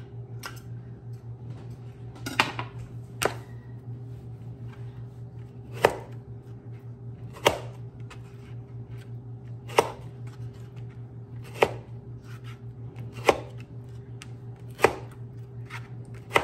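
Hand-pressed food chopper slicing strawberries, its blades knocking down onto a plastic cutting board about every two seconds, nine times in all.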